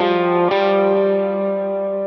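Electric guitar through a Line 6 modeller preset built on a Vox AC30 amp model with overdrive. A note is struck at the start and another about half a second in; both ring out and slowly fade.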